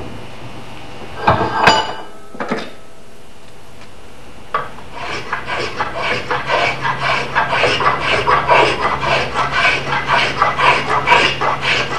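A few sharp knocks, then from about halfway a spokeshave shaving wood off the sides of an axe handle in quick repeated strokes. The handle is being trimmed because it sits too tight in the axe head's eye.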